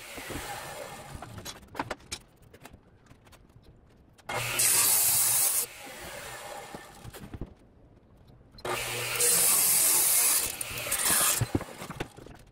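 Radial arm saw cutting an old pine board: two loud cuts, a short one about four seconds in and a longer one from about nine seconds, each a dense hiss of blade through wood over the motor's low hum, with quieter stretches between them.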